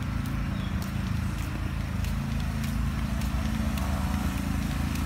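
A steady low engine drone of a running motor vehicle, with footsteps in sandals on a paved path clicking roughly once or twice a second.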